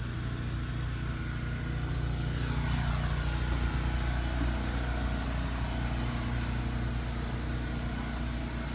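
A motor running steadily with a low, even hum, and a faint falling whine about three seconds in.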